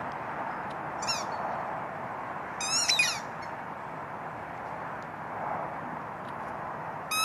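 Squeaky ball dog toy squeaking in short, high bursts as a husky chews it: once about a second in, a louder cluster around three seconds, and again at the end, over a steady hiss.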